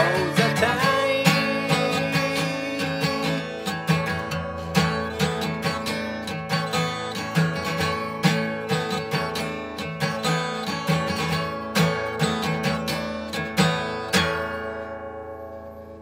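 Acoustic guitar strummed in a steady rhythm, a held sung note ending right at the start. A last strum about fourteen seconds in rings out and fades as the song ends.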